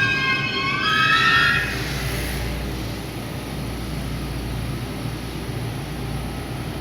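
JR West 223 series electric train pulling away, its traction inverter and motors giving a whine of several tones that rises slightly in pitch and fades out about two seconds in, leaving the steady rumble of the moving train.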